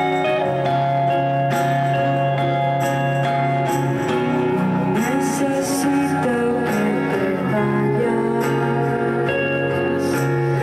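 Live band playing a song: electric guitar and acoustic guitar with long held notes that change from chord to chord.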